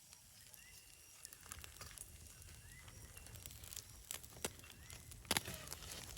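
Quiet outdoor ambience with scattered sharp clicks and knocks, the loudest a pair about five seconds in, and a couple of faint short rising chirps near the start.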